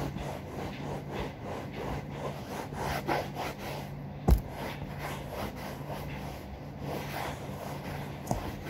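A cloth rubbing toothpaste into a sofa's upholstery in quick, even back-and-forth strokes, scrubbing dirt out of the discoloured surface. A single sharp knock about four seconds in.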